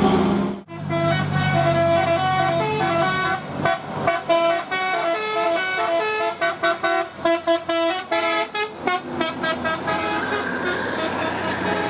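Bus 'telolet' multi-tone musical horn of the Basuri type playing a tune. Held chords and quick runs of short toots step between pitches, with the fastest run of short toots in the middle of the stretch, and the sound cuts out for a moment just under a second in.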